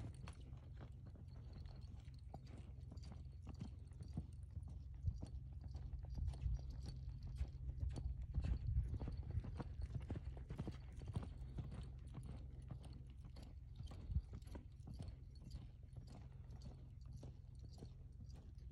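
Hoofbeats of a ridden grade gelding running on soft sandy arena footing, an uneven patter of dull strikes, loudest in the middle as the horse comes nearest and fading as it moves away, over a steady low rumble.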